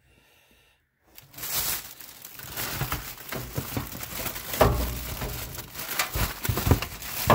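Packaging crinkling and rustling as saw parts are unwrapped from their box, with scattered light knocks. It starts about a second in.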